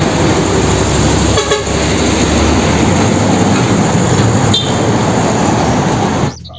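Heavy truck running: a loud, steady, noisy rumble that starts suddenly and cuts off just before the end.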